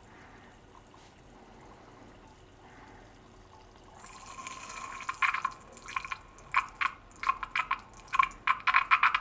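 Coolant being poured from a glass jar into a small plastic funnel in a liquid CPU cooler's reservoir. It is quiet at first. About four seconds in the pour starts, then breaks into loud, irregular gurgles that come faster toward the end.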